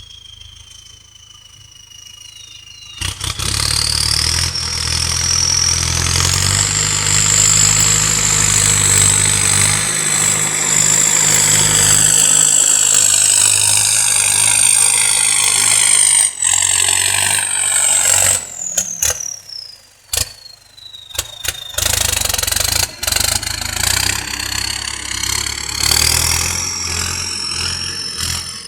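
Turbocharged Ford tractor engine revving, its turbocharger whistling. About three seconds in the engine revs up and the whistle climbs to a high, steady pitch and holds. It slides down in pitch about two-thirds of the way through, amid a few brief cut-outs, then rises again near the end.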